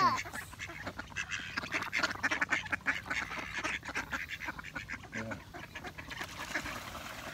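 A flock of mallard ducks quacking and chattering on the water, a dense run of short overlapping calls.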